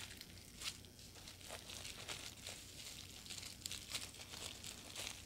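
Bubble wrap crinkling and rustling faintly as it is lifted out of a box and handled, with small scattered crackles.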